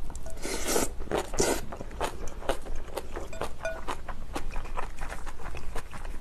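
A person eating crunchy spicy cabbage kimchi close to the microphone. About half a second and a second and a half in come two short, hissing splutters from the mouth, the spicy food sputtering out. After them, a run of wet chewing clicks and crunches.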